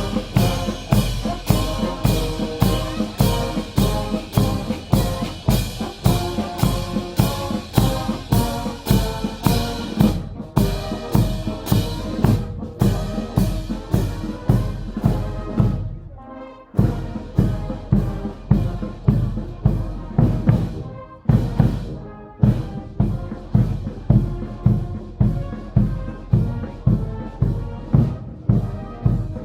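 Marching band playing a march: brass over a steady drum beat of about two strokes a second, with a short pause about halfway through.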